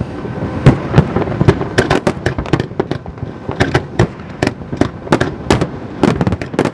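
Fireworks display: an irregular, rapid run of sharp bangs from aerial shells, several a second and varying in loudness, with a continuous haze of noise between them.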